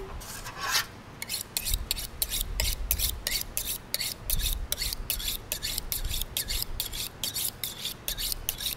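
A large knife sawing back and forth through a blue catfish during filleting, a rapid train of rasping strokes about four a second.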